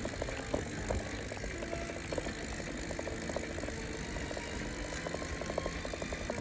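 Steady wind rush and low road rumble on a bicycle-mounted phone's microphone while the bike coasts downhill.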